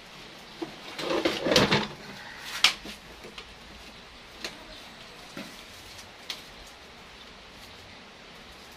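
A bonsai trunk with its wrapped rock and roots being shifted and lifted on a workbench: a short burst of scraping and rustling, then one sharp knock as it is set down, followed by a few faint clicks.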